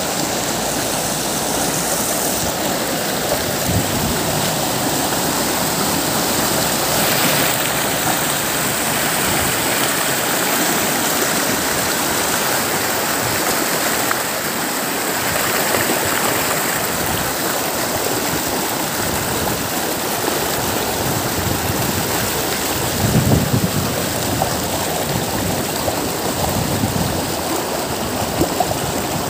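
Shallow river running fast over rocks, a steady, close rush and splash of water, with brief low rumbles about three-quarters of the way through.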